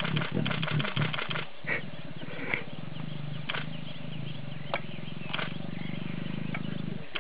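A lion's low, steady growl, starting about a second and a half in and lasting about five seconds before it stops, with a few short sharp clicks over it.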